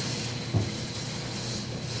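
Steady machine-like running noise with a low hum and a hiss, and a single knock about half a second in.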